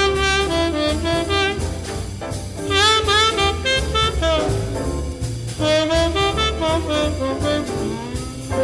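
Swing jazz instrumental break: horns play three short melodic phrases with bent notes over a steady bass line.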